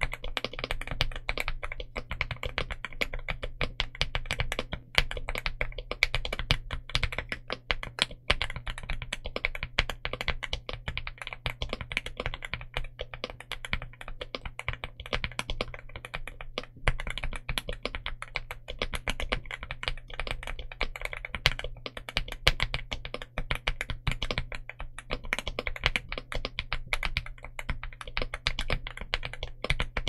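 Continuous fast typing on a Rainy75 mechanical keyboard with a polycarbonate plate, Akko Dracula linear switches and dye-sublimated PBT Cherry-profile keycaps: a dense, unbroken run of keystrokes.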